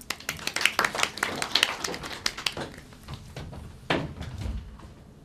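A small group of people clapping for about three seconds, thinning out, then a single thump about four seconds in.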